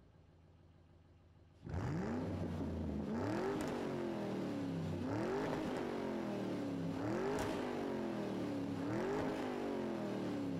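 Car engine revving over and over, starting suddenly about a second and a half in. Each rev climbs quickly in pitch and then falls away slowly, about once every two seconds.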